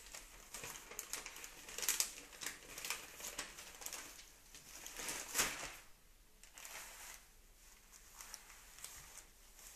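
Glossy paper advertising leaflets rustling and crinkling as a small child lifts, flaps and turns them, with the loudest crinkles about two seconds in and just past the middle, and softer page-handling after that.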